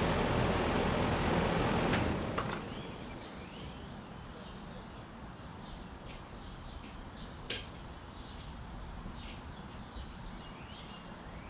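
2013 Trane XB13 air conditioner's outdoor condensing unit running with a steady hum, then shutting off about two seconds in with a few clicks, its fan noise dying away over the next second. Birds chirp in the quiet afterwards.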